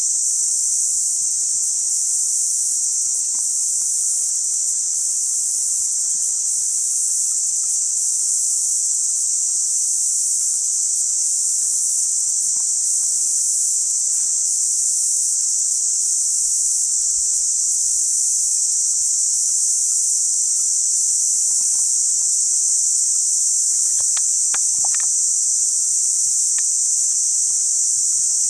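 Steady, loud high-pitched shrill of a daytime insect chorus in tropical bush, unbroken throughout, with a few faint clicks near the end.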